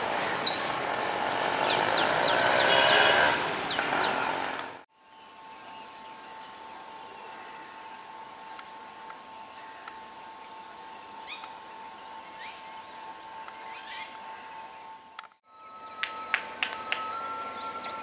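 A diesel-hauled passenger train's carriages passing close, their wheels squealing on the rails in rising and falling tones; this cuts off suddenly about five seconds in. Then steady high-pitched insect buzzing fills the rest, with faint bird chirps and a few sharp clicks near the end.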